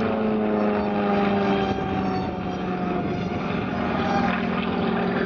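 Su-26 aerobatic plane's nine-cylinder radial engine and propeller droning overhead, its pitch sliding down over the first three seconds and then holding steady.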